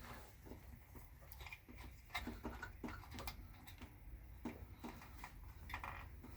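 Faint, irregular clicks and light taps of hands handling wiring and small parts.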